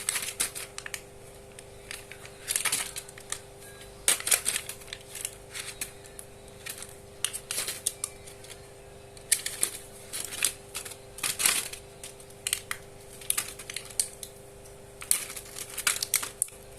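Hands taking apart the plastic parts and packaging of a needle-free injector pen: irregular clicks, snaps and crackles throughout, over a faint steady two-tone hum.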